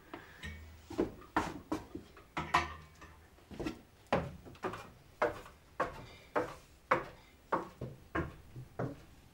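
Footsteps climbing a wooden staircase, about two steps a second, each a short hollow knock on the wooden treads.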